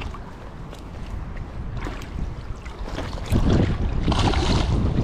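Water splashing as a hooked redfish thrashes at the surface close by, over wind rumbling on the microphone that gets louder about three seconds in.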